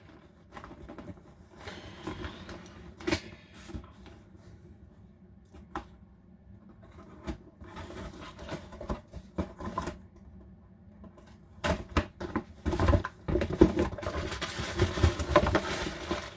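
Hands handling a tablet's cardboard retail box and its packaging: scattered clicks and taps, then denser rustling and scraping for the last few seconds.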